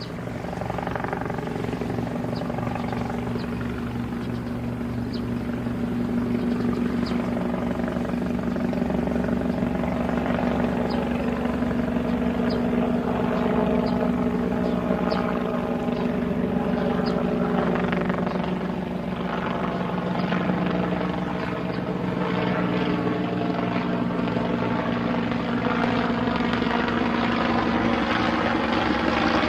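Helicopter running steadily, its rotor blades chopping over a constant engine tone, growing slightly louder over the first few seconds.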